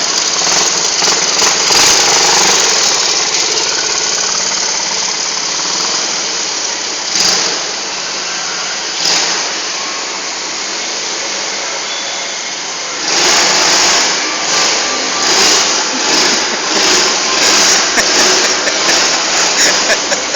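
Small ATV engine running as the ATV is ridden. It gets louder from about two-thirds of the way in, swelling up and down as the throttle is worked.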